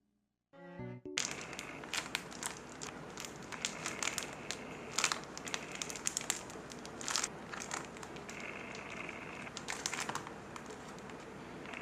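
Plastic-wrapped paper crinkling and crackling as it is handled, a steady run of small crackles with sharper crinkles every so often, starting about a second in.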